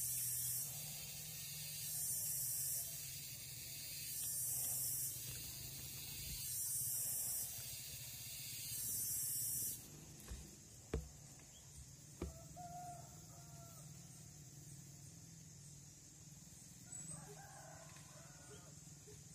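A high hiss swells and fades about every two seconds, then stops abruptly about halfway through. After that there is a steady high whine, two sharp clicks, and near the end a rooster crows faintly.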